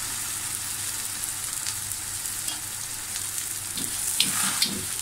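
Onion-filled lachha paratha frying in ghee on a flat tawa, a steady sizzle. Near the end, metal tongs scrape and shift it on the pan.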